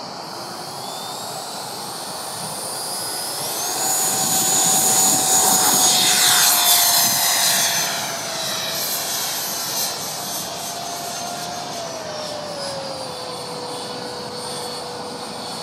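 Electric ducted fan (9-blade 80 mm fan on an inrunner motor) of a Freewing Gripen RC jet, spooling up with a rising whine for takeoff. It is loudest, with a rushing sweep, as the jet passes close about four to eight seconds in, then drops in pitch twice as the throttle eases off in flight.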